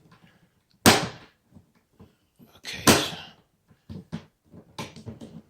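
A pedal board case being handled as its lid is refitted: a sharp knock about a second in, a louder knock with a short rattle near three seconds, then several light clicks.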